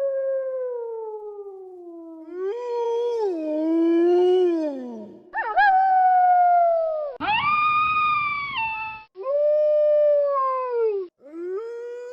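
Wolves howling, a run of long howls one after another, each rising and then sliding down in pitch at the end; one rougher, louder howl comes about halfway through.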